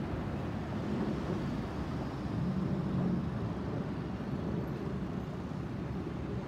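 Steady low rumble of a Boeing 737-800's CFM56-7B jet engines as the airliner flies over at altitude.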